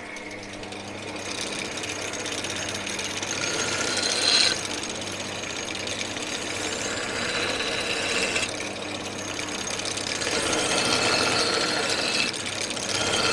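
Combination belt-and-disc sander running with a steady motor hum while a metal plate's edge is held against the abrasive belt, giving a rough grinding rasp that swells and shifts as the plate is moved. It is taking the burrs off the cut edges of the plate.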